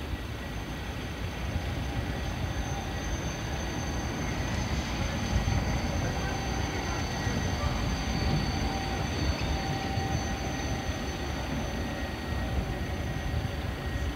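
Articulated low-floor electric tram passing close, a steady rumble of wheels on rail that swells toward the middle, with a thin high whine over it.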